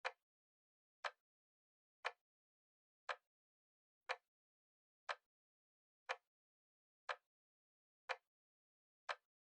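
Timer ticking like a clock: one short, sharp click every second, with silence between.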